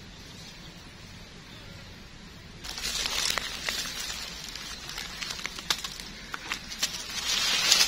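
Quiet outdoor background, then, about two and a half seconds in, dry leaf litter suddenly starts rustling and crackling, with many sharp snaps, as gloved hands and a knife work through the leaves to cut out a mushroom.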